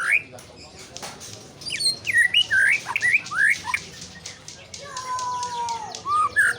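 White-rumped shama singing: a run of quick, varied whistled notes and chirps, then a long whistle that slides down in pitch, and more quick notes near the end.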